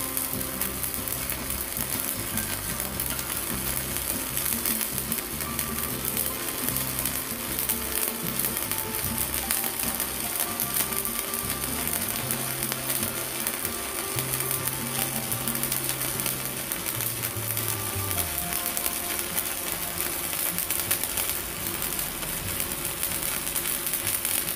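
Stick (MMA) arc welding on a mini IGBT inverter welder burning a 4.0 mm electrode: the arc's steady crackling sizzle, holding even throughout.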